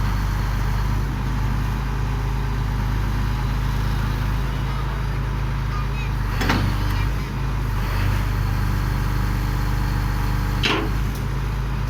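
GD45 horizontal directional drilling rig's engine running steadily with a low drone, with two sharp knocks partway through, a few seconds apart.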